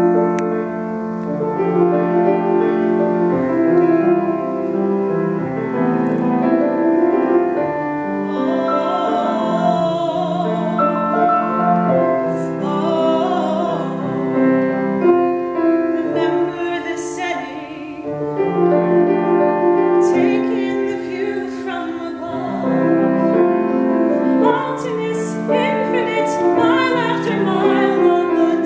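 Grand piano playing a slow musical-theatre accompaniment, with a woman's trained soprano voice singing over it in parts.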